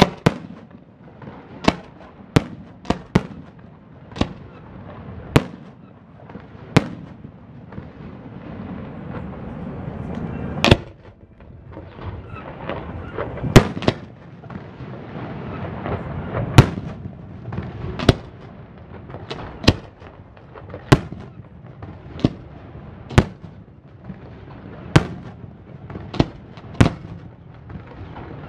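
Aerial fireworks display: shells bursting overhead with sharp bangs every second or two, some much louder than others, over a continuous low rumble.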